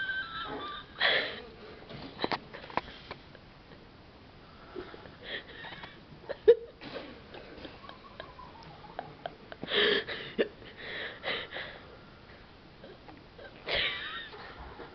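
A person snoring: a loud snore on a breath roughly every four seconds, with a faint falling whistle between two of them.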